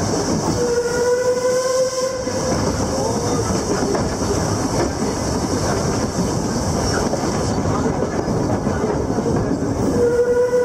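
Puffing Billy narrow-gauge steam locomotive's whistle sounding a long blast about half a second in and another starting near the end, over the steady running and rattle of the moving train.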